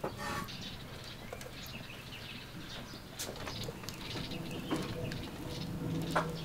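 Faint bird calls over scattered small clicks and rustles as chopped greens are added by hand to a bamboo steamer on a wood-fired stove.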